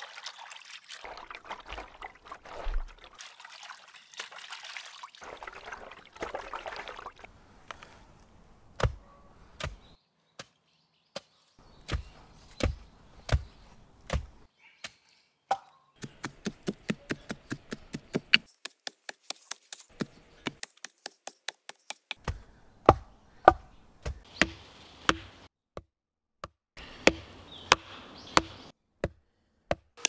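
Water sloshing as soaked plant fibre is worked by hand in a basin, then wooden thumps and knocks from a pestle and a mallet pounding the wet fibre into pulp for paper. In the middle, the knocks come in a fast, even run.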